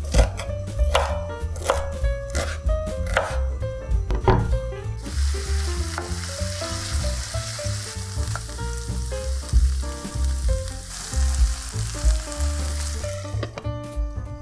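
Knife chopping on a cutting board, about one stroke a second, then from about five seconds in, food sizzling in a frying pan for about eight seconds before the sizzle cuts off. Background music plays throughout.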